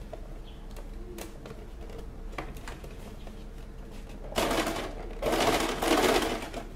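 Domestic electric sewing machine sewing a straight stitch in two short runs, starting about four seconds in, after a few faint clicks as the foam bra cup is set under the presser foot.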